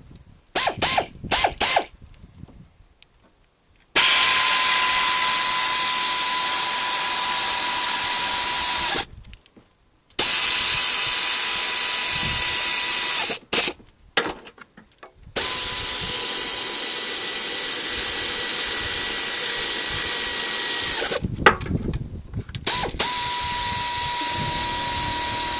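Pneumatic air ratchet running: a few quick triggers at first, then four long runs of several seconds each with a steady high whine and hissing air, stopping briefly between runs.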